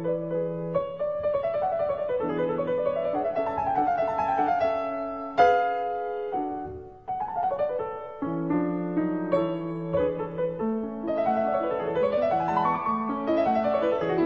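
Background piano music playing flowing runs of notes up and down, with one loud chord about five and a half seconds in and a brief lull soon after.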